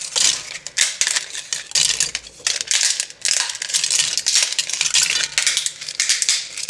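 Dry lasagna noodles being snapped into pieces by hand: a dense, continuous run of sharp cracks and crunches.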